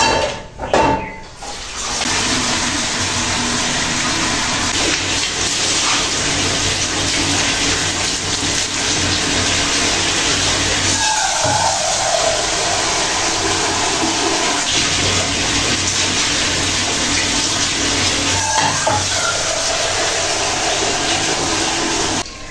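A tap running steadily into a kitchen sink as something is washed under it, cutting off near the end. A brief separate noise comes in the first second or so.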